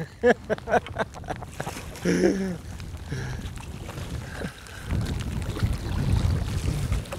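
A man laughing in a quick run of fading bursts, then a couple of short vocal sounds. In the last two seconds there is a low, uneven rumble of wind on the microphone.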